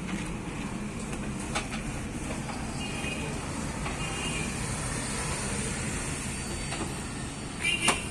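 Steady low hum of road traffic going by, with a few faint clicks and a sharper double click near the end.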